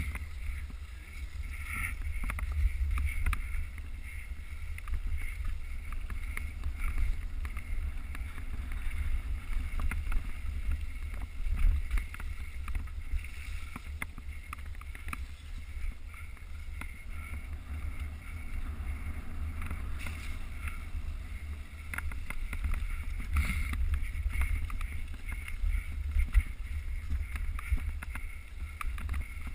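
Mountain bike ridden fast over rough trail, heard through a GoPro: a steady low rumble of wind and ground noise on the microphone, with frequent clicks and rattles from the bike over the bumps.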